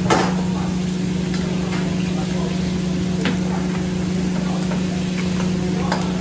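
Pork ribs being stirred in a stainless steel pan with a metal spoon: scattered clicks and scrapes of the spoon against the pan, the sharpest just at the start, over a steady low hum.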